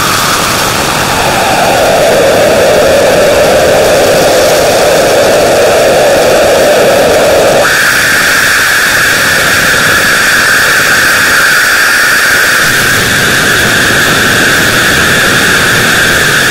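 Loud, harsh static-like noise: a dense hiss with a brighter band in it that slides down to a low pitch at the start, holds, then jumps abruptly to a higher pitch about halfway through and stays there.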